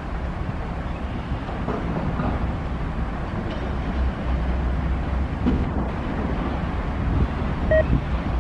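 Diesel freight locomotives running as they haul a train of covered hoppers slowly past, a steady low engine rumble mixed with steel wheels on the rails. A brief high tone sounds near the end.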